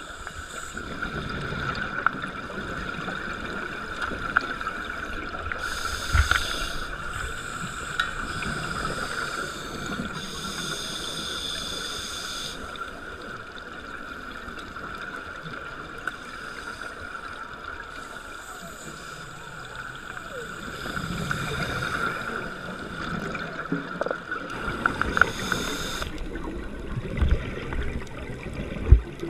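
Underwater sound of a scuba dive: a steady hum, broken every few seconds by the bubbling rush of divers' regulator exhalations. A few dull knocks come near the end.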